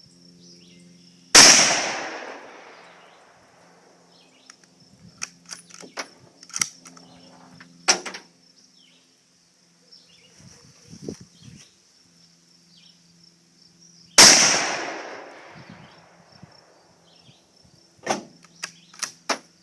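Two gunshots about thirteen seconds apart, each followed by a long echo that dies away, with a few lighter clicks and knocks between them. Crickets chirp steadily throughout.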